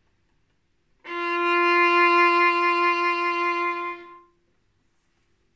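Violin: a single long bowed note, held steady for about three seconds and then fading out.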